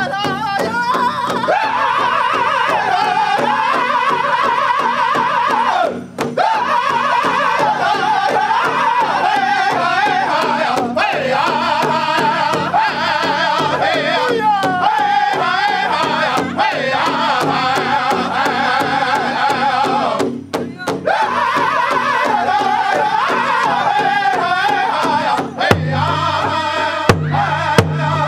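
Powwow drum group singing in high-pitched, wavering unison over a steady, even beat struck together on one large hide powwow drum. The singing breaks off briefly twice between phrases.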